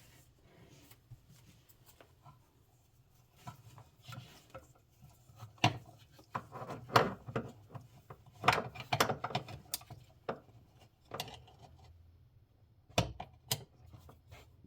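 Screwdriver scraping, rubbing and clicking against a stuck screw on a sink drain fitting, in irregular bursts of small knocks and scrapes; the screw is not turning.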